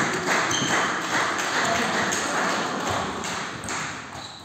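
Table tennis rally: the plastic ball clicking off rubber bats and the table as a defensive chopper trades strokes with an attacker, with brief shoe squeaks on the hall floor.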